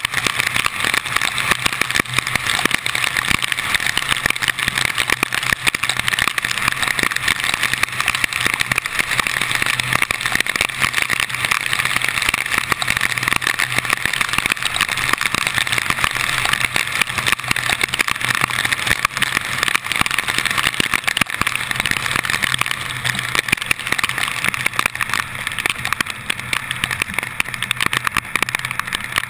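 Heavy rain striking a hood-mounted GoPro's waterproof housing and tyres hissing on the flooded road, over a steady low engine hum, easing a little near the end.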